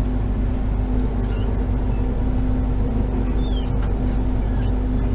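A vehicle engine running steadily, a constant droning hum with no change in speed, with a few faint short squeaks over it.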